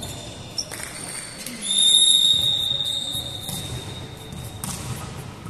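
Volleyball referee's whistle blown once, a single long high-pitched blast that fades out in the hall's echo. Under it is the general noise of the gym.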